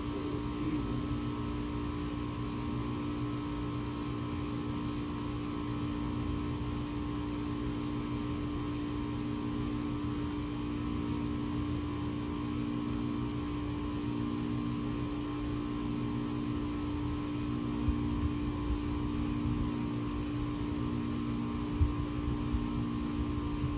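Steady machine hum: a low rumble with several held tones, one of which swells and fades about every second and a half. A couple of soft knocks come in the last few seconds.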